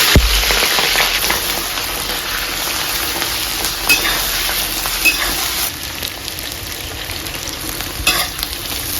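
Chopped scallion and ginger frying in hot oil, a loud sizzle that slowly dies down, with a few clicks from the spatula as they are stirred.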